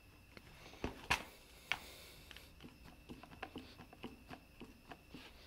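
Faint clicks and light knocks from the hand-pump handle of a vacuum fluid extractor being worked back and forth: the loose internal play of the plunger, whose O-ring fits too loosely to seal. A couple of sharper clicks about a second in, then a run of small ticks two or three a second.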